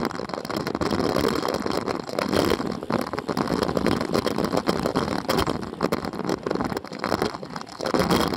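Wind rushing and buffeting over the microphone of a camera riding with a group of road cyclists on a downhill run, with tyre noise and short rattles over rough, patched asphalt.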